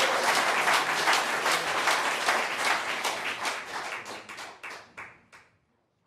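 Audience applauding, the clapping thinning out and dying away, then cut off about five and a half seconds in.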